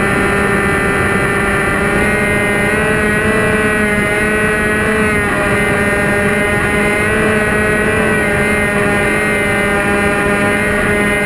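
Delta Ray RC plane's electric motor and propeller running at steady throttle in flight, a droning whine whose pitch wavers slightly a couple of times, heard close up from a camera on the plane with wind rushing over the microphone.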